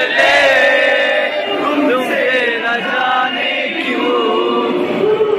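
A man singing into a handheld microphone, with long held notes that bend and slide in pitch, one gliding down near the end.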